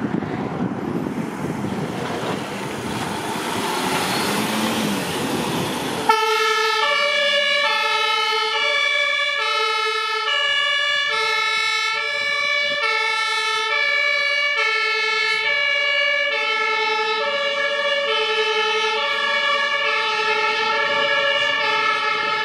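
A Mercedes-Benz Sprinter fire-service command van drives off with a rush of engine and wind noise. About six seconds in, its German two-tone siren (Martinshorn) switches on abruptly and keeps alternating between a lower and a higher note.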